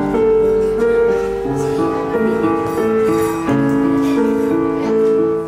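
Solo digital piano playing a slow melody of held notes over chords, the notes changing about every half second to a second.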